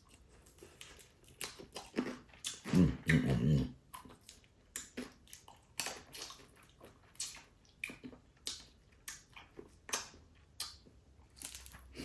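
Whole crabs being cracked open by hand and eaten: a run of sharp shell cracks and snaps with chewing and sucking at the meat. A louder low sound lasts about a second around three seconds in.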